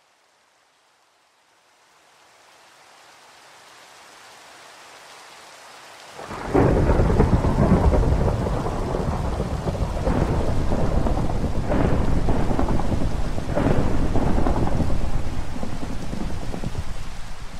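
Rain fading in from near silence. About six seconds in, a long roll of thunder breaks in over it, swelling with a few louder cracks, and begins to ease off near the end.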